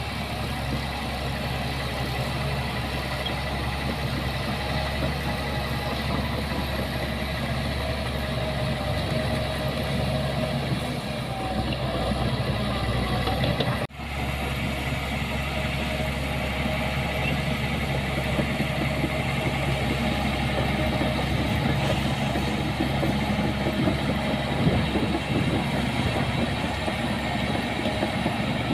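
Heavy earthmoving machine's diesel engine running steadily, with one sudden brief break about halfway through.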